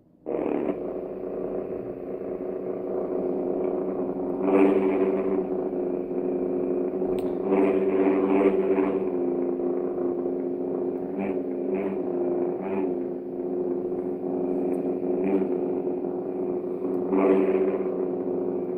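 Homemade lightsaber hum synthesised from sine and square waves by an Arduino Pro Micro through a class D amp. It switches on suddenly at the start, then holds a steady buzzing hum that swells and bends in pitch several times as the saber is swung, its gyroscope shifting pitch and volume with the motion.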